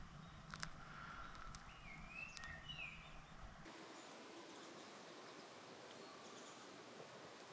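Small birds calling with short gliding chirps, a few sharp clicks among them, over a low hum. A little over three seconds in, the background changes abruptly to a faint even hiss.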